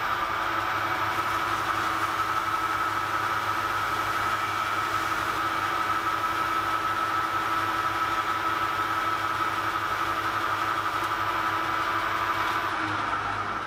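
Small metal-turning lathe running steadily with a whine while a brass piston spins in the chuck and is smoothed to size with 1500-grit wet-and-dry paper. Near the end the motor slows and winds down.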